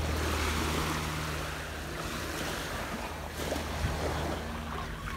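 Small waves washing on a sandy shore, with wind on the microphone. A steady low motor hum, typical of a boat engine running on the bay, sits underneath.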